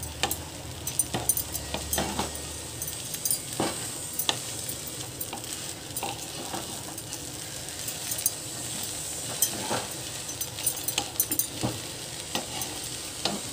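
Wooden spatula stirring poha (flattened rice) in a non-stick kadhai over a high gas flame, with irregular taps and scrapes against the pan and a light sizzle.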